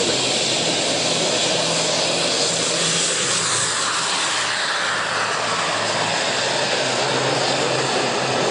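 Engine of a radio-controlled model aircraft in flight, running steadily, with its pitch falling a few seconds in as it passes.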